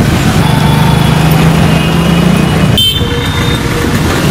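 Road traffic: motorcycles and cars driving past with engines running, a low steady engine drone that stops a little over halfway through.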